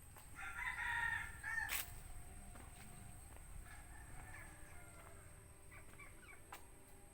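Rooster crowing once, about a second and a half long, followed by a sharp click. Fainter fowl calls follow later.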